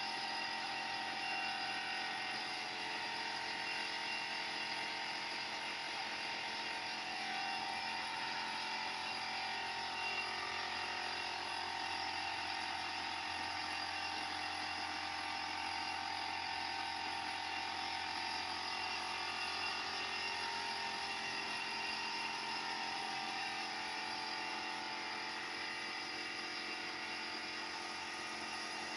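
Compressed-air spray rig running steadily: a constant hiss with a steady mechanical hum underneath, as clear lacquer is sprayed onto wooden furniture.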